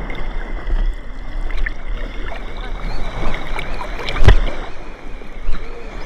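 Sea water sloshing and splashing close to the microphone in shallow surf, with a low rumble under it and a sharp knock about four seconds in.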